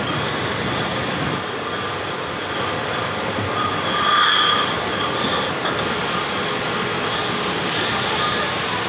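Milk bottling line running steadily, with reusable glass milk bottles moving along the conveyor; there is a louder, ringing moment about four seconds in.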